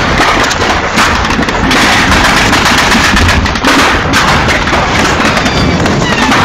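Dense, continuous battle gunfire: rapid rifle and machine-gun shots cracking one over another with no break.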